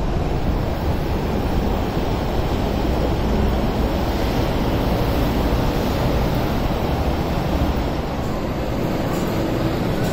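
MTR Kwun Tong Line metro train running on an elevated viaduct: a steady rail rumble, with wind buffeting the microphone.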